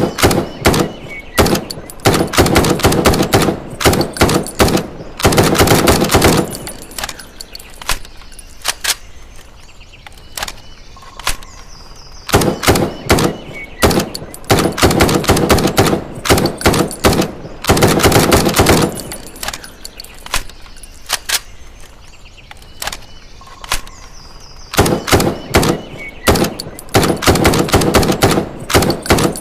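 M656 rifle sound effect: a few single gunshots, then fast strings of shots and a longer dense stretch of fire. The same sequence repeats three times, about every twelve seconds.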